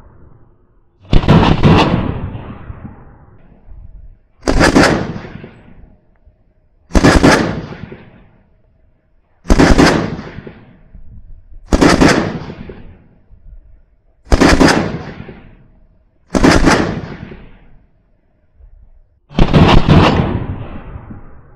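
VULKAN-M bullpup AK-pattern rifle firing about two to three seconds apart, eight times in all. Each report is sharp and trails off in echo over a second or two. The last one, near the end, is longer and may be two shots close together.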